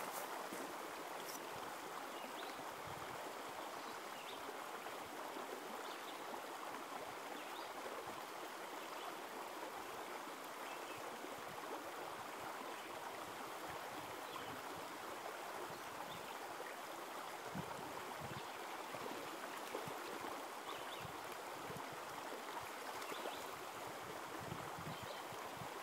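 Shallow creek water running steadily over rocks in a riffle.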